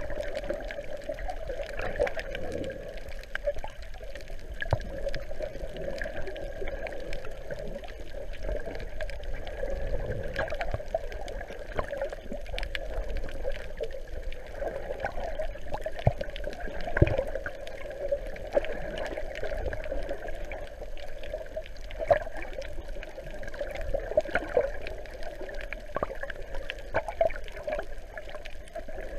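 Muffled underwater sound picked up through an action camera's waterproof housing: a steady swishing of water with scattered faint clicks.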